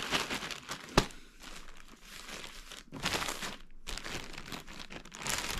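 Plastic packaging bag crinkling as it is handled, in several irregular bursts, with one sharp click about a second in.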